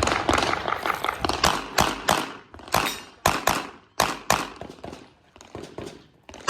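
Handgun shots fired in a fast, irregular string, several of them in quick pairs with short pauses between groups, from a competitor shooting a timed practical-shooting stage.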